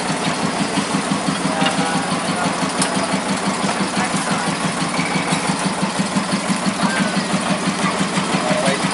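Small locomotive engine running at a steady, quick, even beat.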